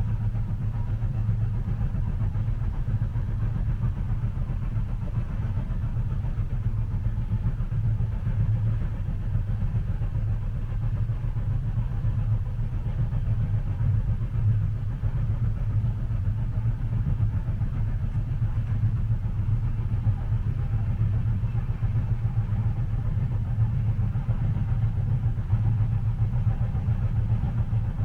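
Steady low rumble of a train carriage's interior while the train runs, an even drone without distinct rail clicks.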